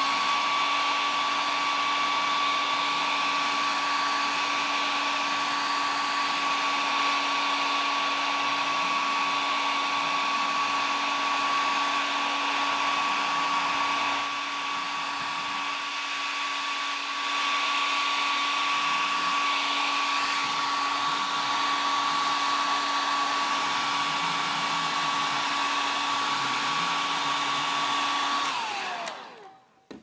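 Hair dryer running steadily, blowing hot air to heat-shrink a cellophane diaphragm tight: a hiss of air with a steady motor whine, a little quieter for a few seconds in the middle, then switched off near the end with the whine winding down in pitch.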